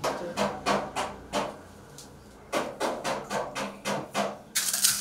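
Kitchen preparation sounds: a quick run of about five scraping strokes on wood, a pause, then another run of strokes. A louder, hissing rustle follows near the end.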